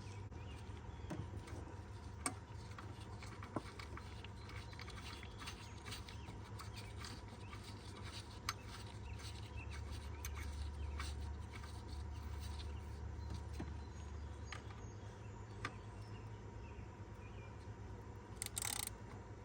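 Faint, scattered metallic clicks and scrapes of a socket and bolt being worked while a new serpentine-belt idler pulley is fastened in place, over a steady low hum.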